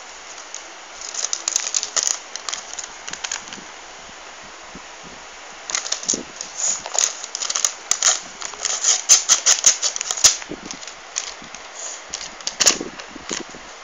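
Sheets of paper crackling and rustling in quick bursts as they are handled and chopped up, busiest from about six to ten seconds in.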